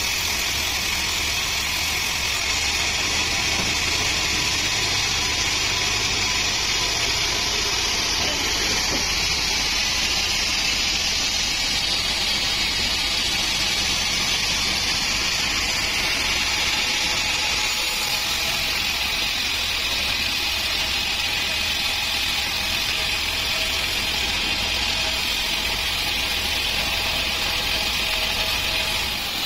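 Large band sawmill running and cutting lengthwise through a teak log, a steady high-pitched machine noise that holds even throughout.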